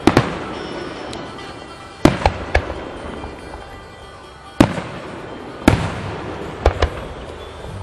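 Aerial firework shells bursting overhead: a string of sharp bangs, some coming two or three close together, each followed by a rolling echo that dies away.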